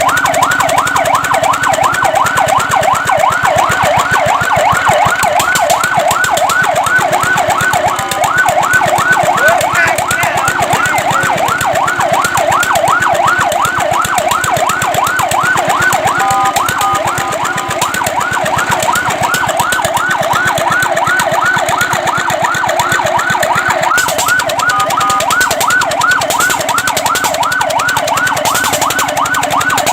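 Fire truck siren in a rapid yelp: a fast rising-and-falling whoop repeating several times a second, loud and steady, broken twice by a short steady two-note tone.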